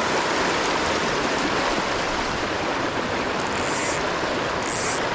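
River current rushing steadily over rapids, an even, unbroken water noise.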